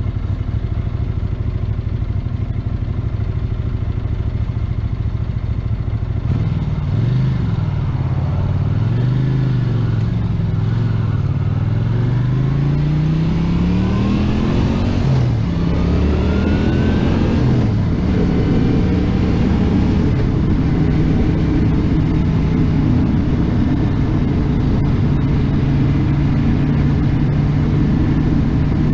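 A 1982 Honda GL500 Interstate's water-cooled V-twin runs steadily at first. About six seconds in the revs rise and fall a few times as the bike moves off, then climb through two gear changes. From about two-thirds of the way in it holds a steady cruising note, with wind noise.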